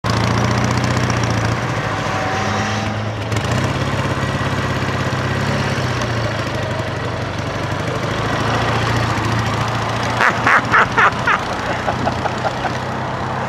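CJ750 sidecar motorcycle's air-cooled flat-twin engine running evenly as it rides, its pitch rising and falling with the throttle. Just after ten seconds there is a quick run of short honks.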